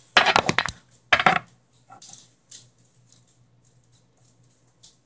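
Slime being squeezed and worked by hand, popping and crackling as air pockets burst: two short bursts of rapid crackles, then faint scattered ticks.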